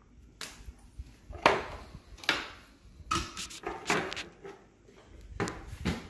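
Hard plastic knocks and scrapes as the screw-on lid of a plastic pet food container is handled and fitted onto it: a string of sharp, uneven clacks, the loudest about a second and a half in, with more in the last second.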